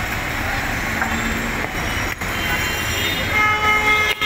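Steady street noise with a long horn, a steady many-toned blare that dies away near the start and sounds again from about three seconds in.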